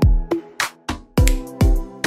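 Background music: an upbeat electronic track with a steady kick-drum beat and sustained synth chords.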